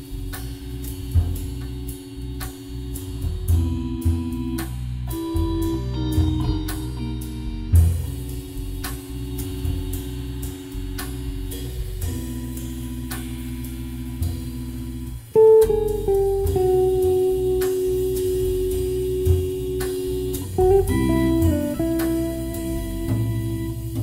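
Live jazz trio of Hammond organ, electric guitar and drum kit. The organ holds sustained chords over steady cymbal strokes, and about fifteen seconds in a louder single-note melody line with bends comes in on top.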